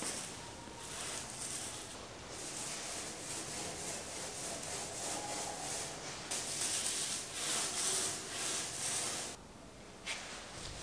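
Small paint roller being rolled back and forth over a wooden shelf board with wet paint, a run of repeated sticky scraping strokes. The strokes are loudest past the middle and pause briefly near the end.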